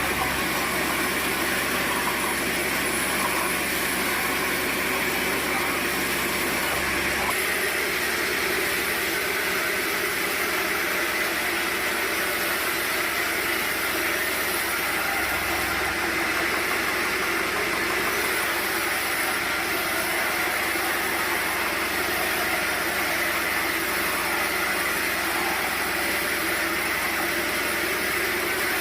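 Sawmill machinery running steadily: an even motor drone with no distinct cuts or impacts. The low hum drops away about seven seconds in.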